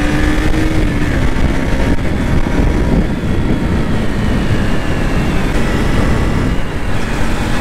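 KTM RC 200's single-cylinder engine pulling steadily as the motorcycle is ridden, under heavy wind buffeting on the microphone. The engine's steady note is clear for about the first two seconds, then sinks under the wind rumble.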